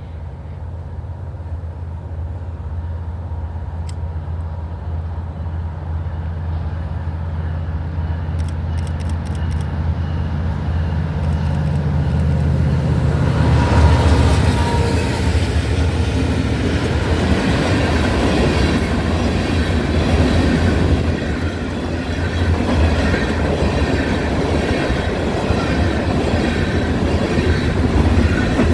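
Norfolk Southern coal train passing. A low drone from the diesel locomotives grows louder until they go by about halfway through. Then the train cars roll past with a steady rumble of wheels on rail.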